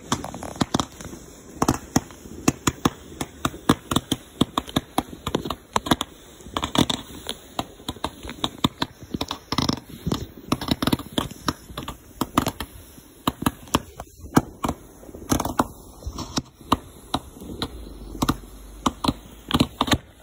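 Consumer fireworks set off from the ground, firing an irregular rapid string of pops and bangs, several a second, as their coloured shots go up and burst.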